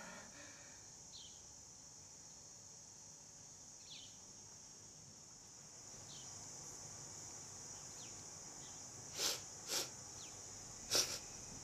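Faint, steady high-pitched insect chirring with a few short, faint chirps over it, then three sharp clicks near the end.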